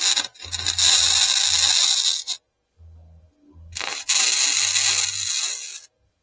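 Electric arc welding on thin sheet steel: two welds of about two seconds each, with a crackling, frying arc noise and a low hum coming and going around them. The welder's heat is turned well down for the thin metal.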